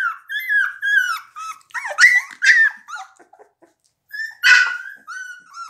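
17-day-old blue pit bull puppies whining and crying in a run of short, high-pitched, falling squeals. The cries stop briefly a little after three seconds in, and a louder, harsher cry comes about four and a half seconds in.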